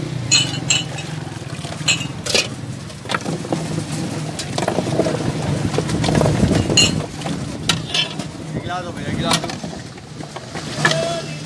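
Busy street-market noise: indistinct background voices and traffic, with repeated sharp clinks of glass mugs and metal pots.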